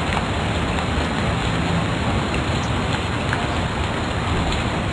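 Steady loud hiss, the background noise of the lecture recording, with no words spoken.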